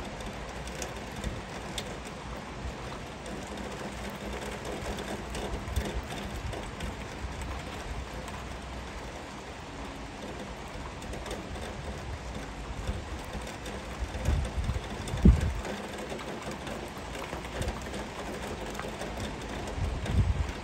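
Heavy rain falling steadily. A few low rumbles rise over it, the loudest about three-quarters of the way through and another near the end.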